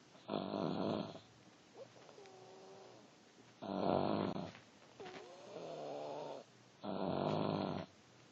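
Snoring: three loud, harsh snoring breaths, each about a second long and about three seconds apart. Between them a quieter wavering whistle rises and falls.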